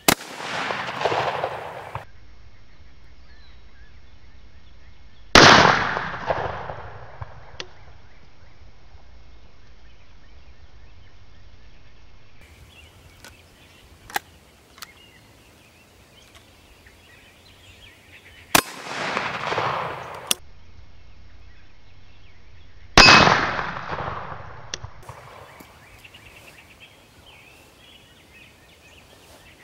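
Four rifle shots a few seconds apart, the second pair after a long pause, each trailing off in a rolling echo of about two seconds. A few short, sharp clicks come between the shots.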